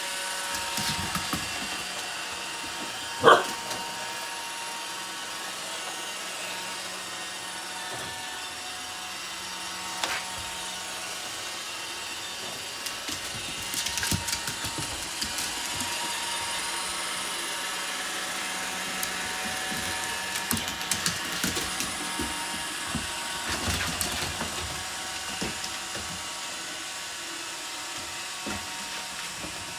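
Roomba robot vacuum running with a steady whirring hum, its brushes clicking and knocking now and then. About three seconds in, a husky gives one short, loud call.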